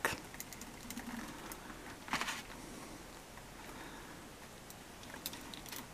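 Faint clicks and light rattling of hard plastic action-figure parts being handled as a small gun accessory is fitted onto the figure's arm, with a slightly louder scrape about two seconds in.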